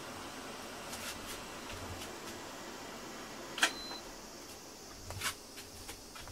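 Household dehumidifier being switched off: a sharp click with a short high beep about halfway through, after which its steady fan hum drops a little. Light clicks and knocks of handling come before and after.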